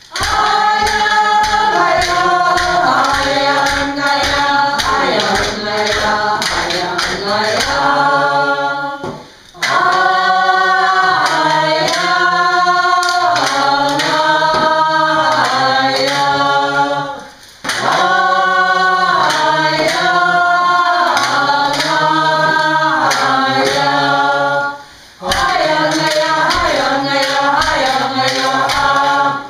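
A group of Aleut singers, men and women, singing a traditional dance song together over a steady drumbeat. The song breaks off briefly three times between phrases.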